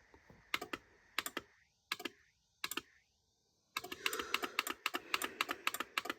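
Sharp clicks from pressing the light button on a Craftsman premium wall control for a garage door opener, toggling the opener light. There are four single clicks spaced well apart, then from about four seconds in a fast run of clicks, several a second, over a faint hum.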